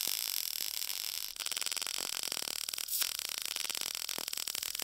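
Short-circuit MIG welding arc from a Lincoln PowerMIG 210MP crackling with a fine hiss as it runs 0.030 in wire at 19 volts with the wire feed turned down to 170 inches a minute, drawing only about 82–86 amps. At this wire feed speed the setting is too low for almost every application and throws a lot of fine spatter. The crackle drops out briefly a little over a second in.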